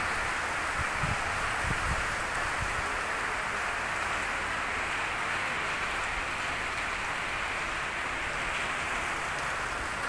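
Steady rain falling, an even hiss with no letup.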